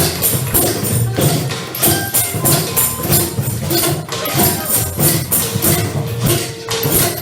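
Music with repeated percussion strikes, jingling high and sharp, over lower pitched sound.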